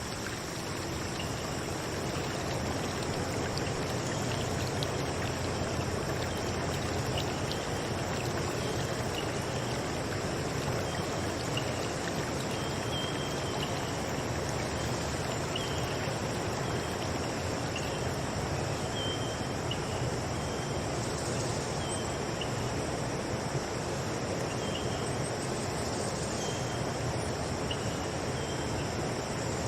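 Steady flowing of a stream, with a constant high drone of insects over it and short chirps repeating every second or two.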